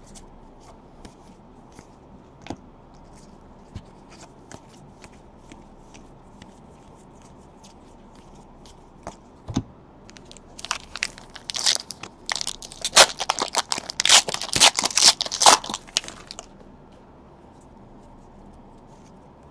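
Trading cards handled with light clicks and rustles, then about six seconds of loud tearing and crinkling from about ten seconds in: a card pack's foil wrapper being ripped open and crumpled.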